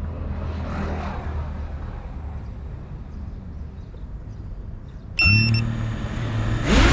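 Geprc Mark 5 FPV quadcopter's brushless motors, heard from the onboard GoPro. For about five seconds there is only a low hum and a brief swell of noise. Then the motors start abruptly and spin at idle with a steady whine, and near the end the throttle comes up and the motor pitch rises for takeoff.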